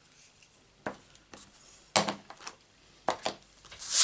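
Hands handling paper and small craft items on a craft mat: a few light knocks and taps, the sharpest about two seconds in, with some brief rubbing of paper near the end.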